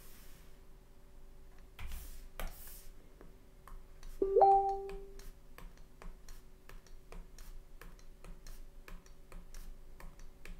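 Stylus tapping and stroking on a drawing tablet, a run of small sharp clicks with two louder ones about two seconds in, over a faint steady hum. About four seconds in there is a short hummed "mmm" from the voice.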